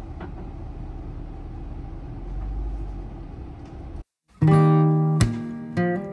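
Steady low rumble of a van's engine and road noise heard from inside the cab as the van rolls slowly. It breaks off just after four seconds, and strummed acoustic guitar music starts.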